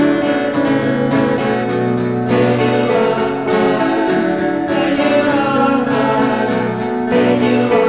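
Music: a strummed acoustic guitar with a voice singing.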